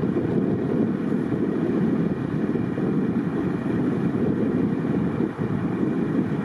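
Steady low rumble of wind buffeting the microphone, mixed with the sound of highway traffic and snowplows.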